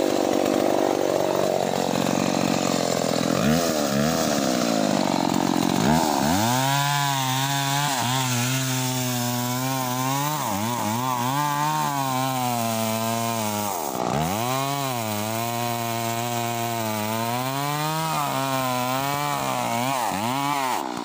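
Stihl chainsaw cutting into the base of a teak trunk. The engine revs unevenly for the first few seconds, then holds a steady high pitch that sags under load several times, dropping sharply about two-thirds of the way through.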